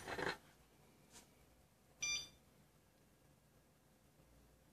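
Near silence broken by a faint tick and then, about two seconds in, one short electronic beep with a clear pitch and overtones, from a SOEKS-01 Geiger counter held against a smoke detector's americium-241 source.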